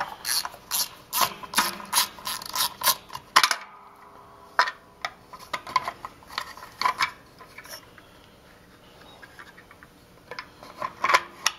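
Ratcheting screwdriver clicking at about four clicks a second while driving a cover screw into an air compressor's pressure switch; the clicking stops after about three and a half seconds, leaving a few scattered clicks and knocks.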